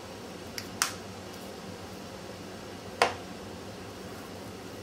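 Hands working minced ladyfish meat into patties over a glass bowl, with two sharp clicks, one about a second in and a louder one about three seconds in, over a steady low room hum.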